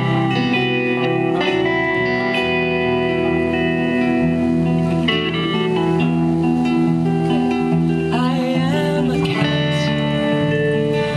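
A live band plays an instrumental passage: electric guitars and an electric bass through small combo amps, with a steady bass line under the guitar notes. About eight seconds in, a guitar line bends and wavers in pitch.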